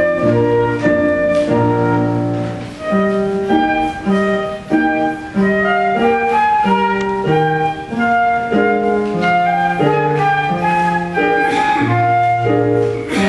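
Concert flute playing a quick melody of short, changing notes over a piano accompaniment.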